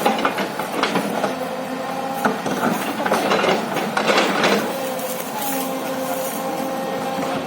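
Hyundai hydraulic excavator working: the engine and hydraulics run with a whine that comes and goes, over repeated metal knocks and clanks.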